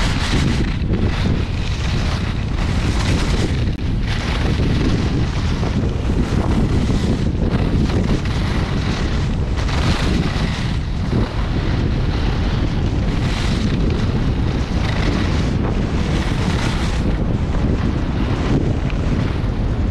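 Wind buffeting the microphone of a skier's camera during a fast run down a groomed piste, with the hiss of skis scraping on packed snow swelling and fading with the turns.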